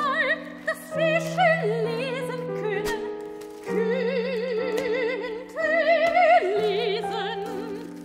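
Classical soprano singing with a wide vibrato in short phrases, over sustained low piano chords that change about every second.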